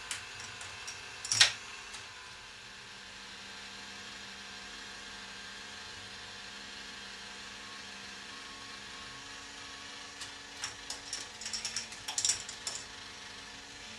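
Revolving K'nex ball machine turning with a steady mechanical hum, while balls roll and click along its plastic track: one sharp clack about a second and a half in, and a run of rattling clicks near the end.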